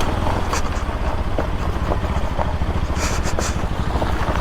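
Bajaj Pulsar NS200's single-cylinder engine running with a rapid low pulsing throughout, with a few short hissy bursts about half a second in and around three seconds in.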